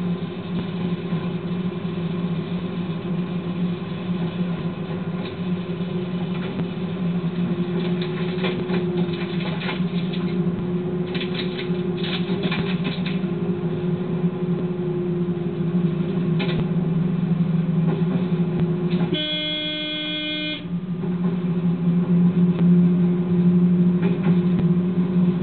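Train heard from the cab, a steady engine and running drone with a run of short clicks and clatter partway through. About three-quarters of the way in, a single horn blast of about a second and a half sounds over it.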